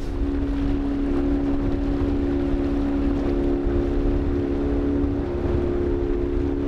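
Outboard motor of a small open skiff running at a steady speed, giving an even hum that holds one pitch throughout, with wind rumbling on the microphone.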